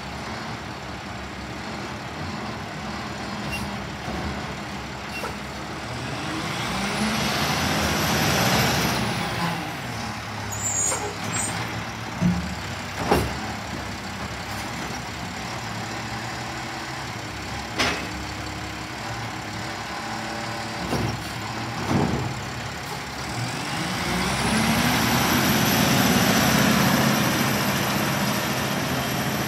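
Mack LR side-loader garbage truck's engine running, swelling louder twice as the truck pulls ahead and passes, with several sharp knocks in the middle.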